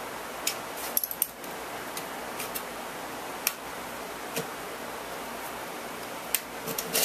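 Scattered light metal clicks and clinks from small camp cookware and utensils being handled, with a cluster about a second in and another near the end, over a steady hiss.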